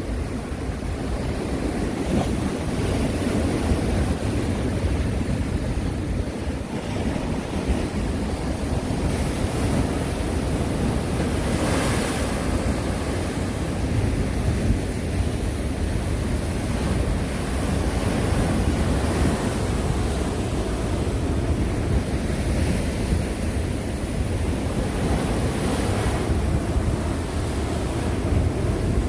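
Sea waves breaking and washing on the shore in a continuous surf. A low rumble of wind buffets the microphone. A louder breaker hisses about twelve seconds in and another near the end.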